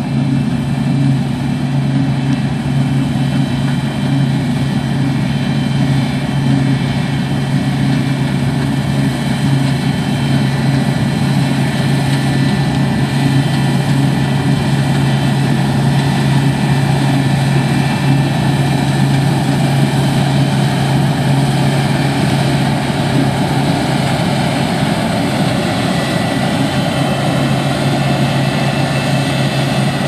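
New Holland CX8070 combine harvester running steadily while cutting barley: its engine and threshing machinery make a constant low drone with steady high whining tones over it.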